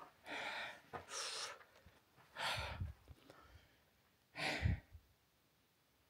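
A man breathing heavily close to the microphone: four loud, airy breaths over about five seconds.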